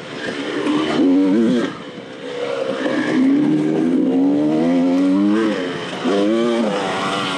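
Dirt bike engine worked on and off the throttle in an enduro race. There is a short burst of revs about a second in, then a long rising pull through the middle, and another quick burst near the end.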